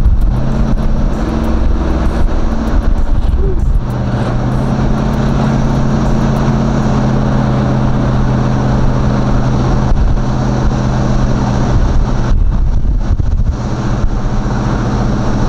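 A box-body Chevy Caprice's stock small-block V8 heard from inside the cabin while cruising, a steady engine drone over road noise. The engine's note steps to a new pitch about four seconds in, and eases off for about a second near the end before picking up again.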